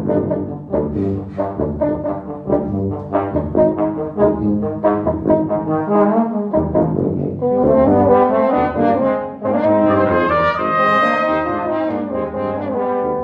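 Brass quintet of two trumpets, French horn, trombone and tuba playing a tango: short, detached rhythmic notes over a tuba bass line, then from about seven seconds in long held chords topped by a high sustained note.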